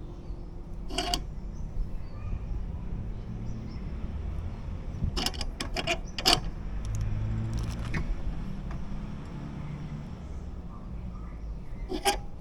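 Scattered sharp clicks and knocks of hand tools and metal parts being handled during motorcycle brake work: one about a second in, a quick cluster around the middle, a few more shortly after, and one near the end, over a steady low background rumble.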